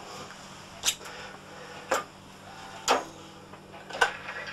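Four sharp ticks, evenly spaced about a second apart, over a steady faint hiss and low hum.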